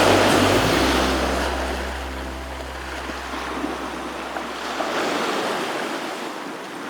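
Sea waves washing, an even rushing noise that eases off and swells again about five seconds in. The last of a song's notes and bass fade out in the first second.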